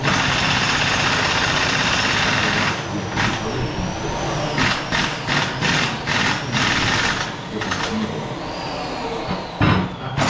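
Air impact wrench hammering on a fastener of a tractor differential: a long continuous run, then a string of short trigger bursts a couple of seconds later and a few more near the end.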